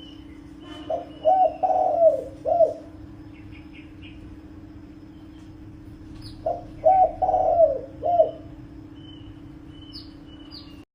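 Spotted dove cooing: two phrases of four or five coos each, about five seconds apart, the call of a caller dove used to lure wild doves. A steady low hum runs underneath, and small birds chirp faintly.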